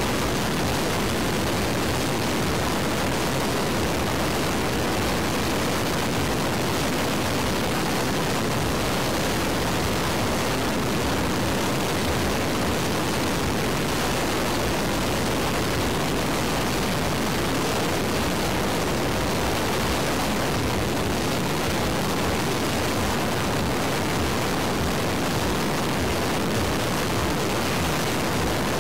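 Rocket engine firing continuously in a static test: a loud, steady rush of noise that holds at an even level without breaks or changes.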